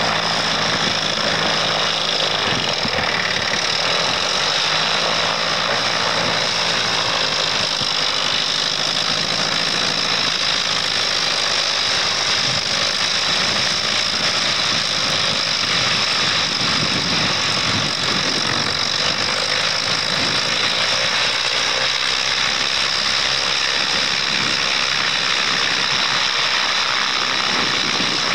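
The engine of a crash-repaired Piper Super Cub running steadily on the ground with its propeller turning, as the light plane is ground-run and taxied on rough terrain. This is the first running of the engine after the propeller was replaced.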